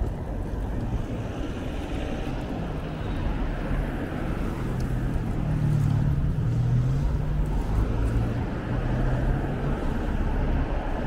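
City street traffic, with a car driving past: its engine hum swells about halfway through and then fades. A steady low wind rumble on the microphone from the moving bicycle runs underneath.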